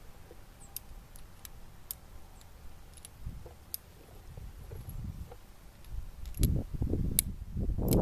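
Uberti 1875 Remington Outlaw single-action revolver being handled and reloaded: scattered small metallic clicks as the cylinder is turned and cartridges go in. Low rumbling handling noise grows louder in the last two seconds.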